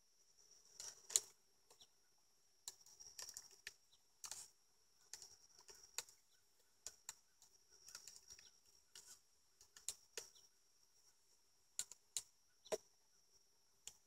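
Scattered clicks and scrapes of wooden beehive frames and a hive tool being handled, the loudest about a second in, over a faint steady high insect drone.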